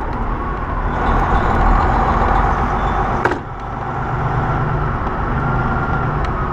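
Semi truck's diesel engine running under way with steady road noise, its turbocharger barely working. About three seconds in there is a sharp click and the sound briefly drops, then picks up again with a stronger low hum.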